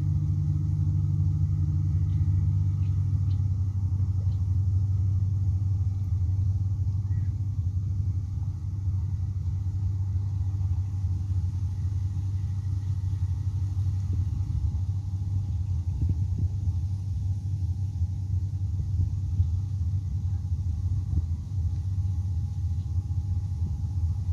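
An engine running steadily with a low rumble that holds even.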